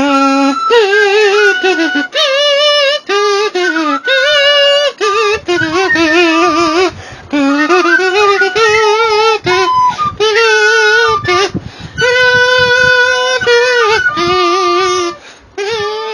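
A single high voice singing a wordless tune with strong vibrato, in held notes broken by short gaps. It dies away near the end.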